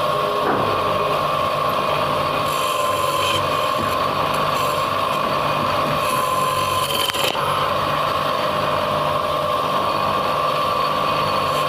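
A woodworking machine running steadily, with a held whine and a low hum. Several short, high hissing passes come and go over it, about a third of the way in and again past the middle.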